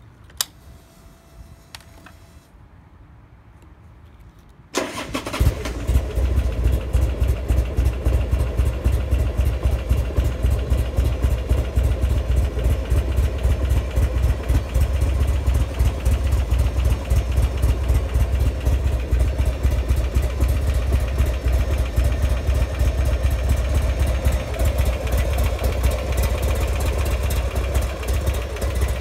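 Buell XB9S Lightning's air-cooled 984 cc V-twin engine starts abruptly about five seconds in and then idles steadily. A faint click comes before the start.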